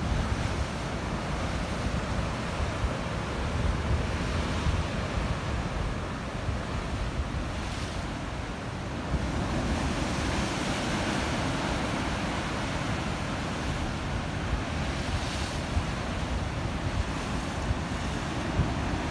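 Rough sea surf breaking and washing over rocks in a continuous noisy wash. Wind buffets the microphone, adding a heavy low rumble.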